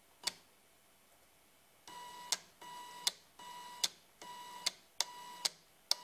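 Faint sound of an old printer's DC motor and plastic gear train, driven by an Arduino at reduced speed through pulse-width modulation and making short stepwise moves. A couple of isolated clicks, then from about two seconds in a repeating cycle: a high steady whine of under half a second, then a sharp click, about once every 0.8 s.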